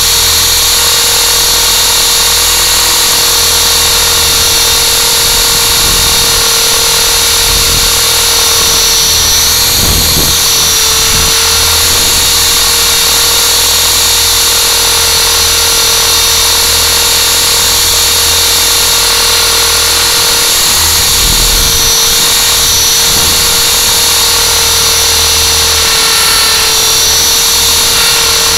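Electric motors and propellers of a small radio-controlled aircraft hovering, heard through its onboard camera: a loud, steady high whine whose pitch wavers briefly about ten seconds in and again a little after twenty seconds.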